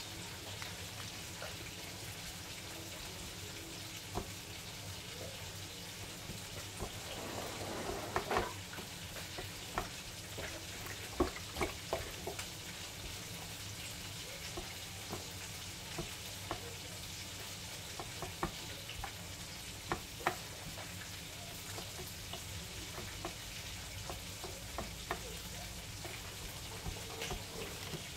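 Gloved hands dredging raw chicken wingettes in crispy fry breading on a plastic plate: scattered soft taps and crinkles over a steady hiss, with a longer rustle about seven seconds in.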